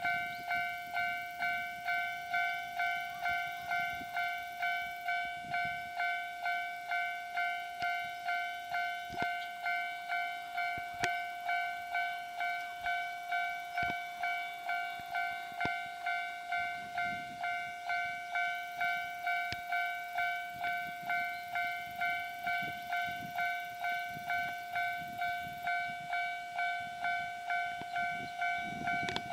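Japanese level-crossing warning bell ringing, a steady electronic clang repeating about twice a second, which signals that a train is approaching. Near the end a low rumble starts to build underneath.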